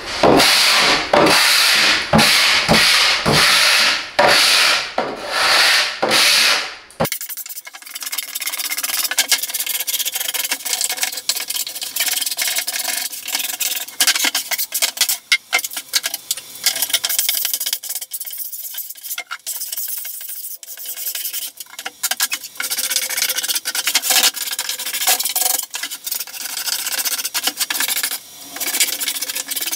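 Hand saw's teeth scraped back and forth across the face of a plywood board, about two strokes a second, scoring the surface rough so adhesive will have something to bond to. About seven seconds in the sound changes abruptly to quieter scraping with many small clicks and knocks from the boards being worked and handled.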